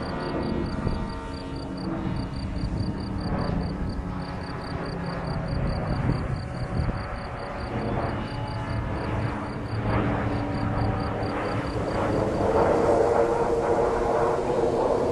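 Engine of a radio-controlled model tow plane running overhead while towing a model glider, its pitch wandering and growing louder near the end. A rapid, even high-pitched beeping sounds alongside it and stops about eleven seconds in.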